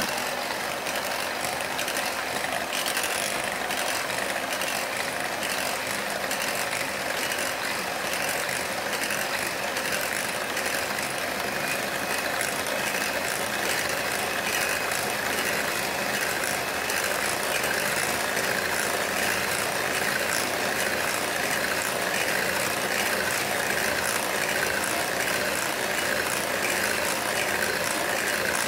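Electric hand mixer running steadily at an even speed, its two metal beaters whipping cream in a glass bowl.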